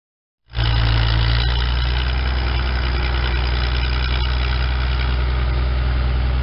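Engine of a Northwest power shovel running steadily with a low hum while the shovel digs. It cuts in abruptly about half a second in.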